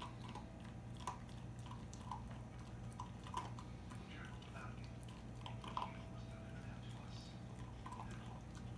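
Basset hound puppy nibbling and licking at its own hind leg: soft, irregular wet mouth clicks over a steady low hum.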